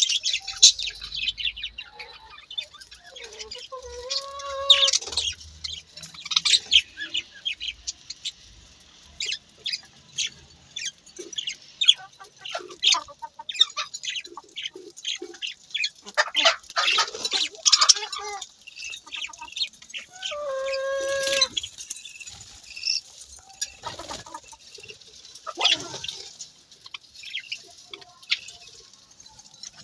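Budgerigars chattering, with many quick, high chirps and clicks, joined twice (about four seconds in and again around twenty-one seconds) by a longer, lower-pitched call.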